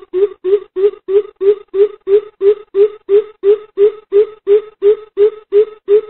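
Greater coucal calling: a long, even series of deep hoots, about three a second.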